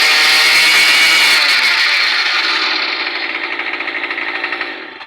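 Small two-stroke engine of a Murray M2510 string trimmer, running on a freshly fitted replacement carburetor. It runs fast and loud, then slows with a falling pitch and dies away just before the end, as the engine winds down and stops.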